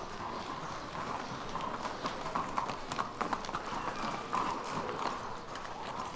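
Horses' hooves clip-clopping on stone paving as a horse-drawn chariot moves, with many irregular hoof strikes.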